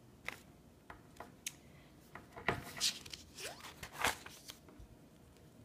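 Pages of a spiral-bound paper sketchbook being turned: a few light ticks, then paper rustling and swishing in a cluster through the middle, loudest between about two and a half and four seconds in.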